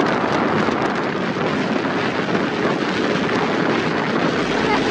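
Wind rushing over a phone microphone on a moving motorcycle, a loud, steady roar that buries the road and engine noise beneath it.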